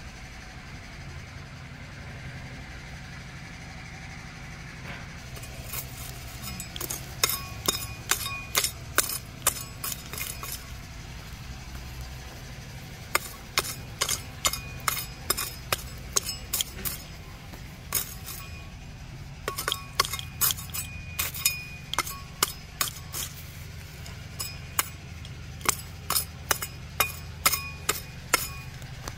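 Steel hoe blade chopping into hard, dry clods of soil: quick runs of sharp metallic clinks with a short ring, about three a second, in four bursts with brief pauses between.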